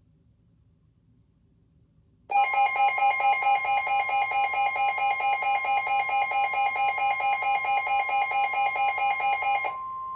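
NOAA Weather Radio alert tones: about two seconds in, a loud electronic alarm starts, pulsing about three to four times a second over a steady tone. Near the end the pulsing stops and the single steady warning tone carries on.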